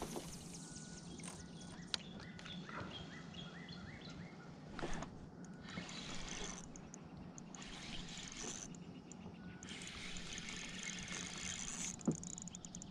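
Faint outdoor ambience on a pond, with a few short bird calls in the first few seconds and scattered light clicks.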